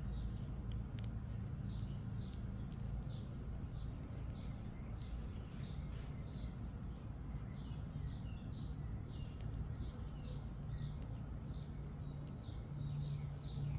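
A bird calling over and over, a run of short high notes that slur downward, two or three a second. Scattered sharp snaps from the campfire crackling and a steady low hum lie under it; the hum grows a little louder near the end.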